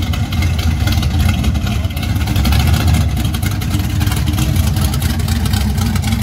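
Chevrolet El Camino's engine running loud and deep as the car pulls slowly away.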